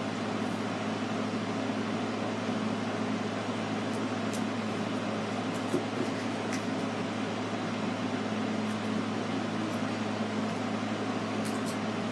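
Steady background hum and hiss with a constant low drone, broken only by a few faint small ticks.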